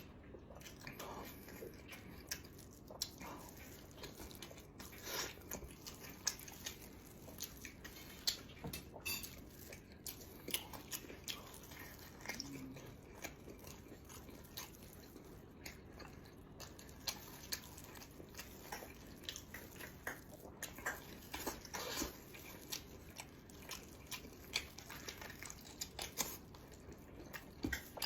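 Close-miked eating: a person biting and chewing food, with many short irregular clicks and mouth sounds.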